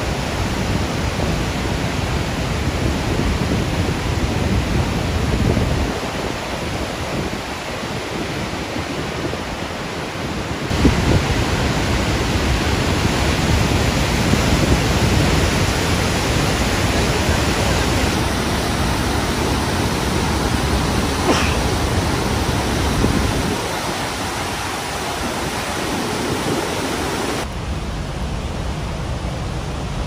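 Rhine Falls: white water of a wide river waterfall pouring over rocks close by, a loud, dense, steady rush whose tone changes abruptly several times.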